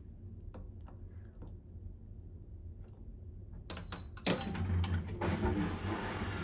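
Bosch washing machine starting its cycle: a few faint clicks, a short electronic beep, then a steady rushing hiss about four seconds in, typical of water starting to fill the machine.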